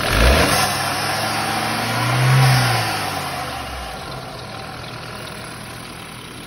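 BMW 328i engine revved from idle, rising to a peak about two and a half seconds in and dropping back to idle by about four seconds, with a strong hiss that grows with the revs. The owner takes the hiss for a perforated diaphragm in the crankcase ventilation valve.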